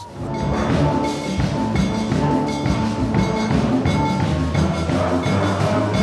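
Steel band playing: many steelpans struck together, bright ringing notes in quick succession over a low bass line.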